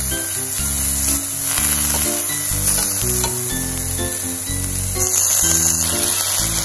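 Bellflower root strips sizzling as they pan-fry in perilla oil, a steady hiss that starts suddenly. Background music plays underneath.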